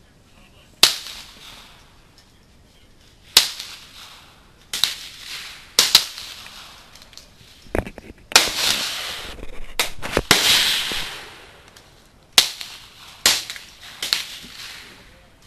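AR-15 rifle in .300 Blackout firing 208-grain subsonic rounds: about ten shots at uneven intervals of one to three seconds, each trailing off in an echo.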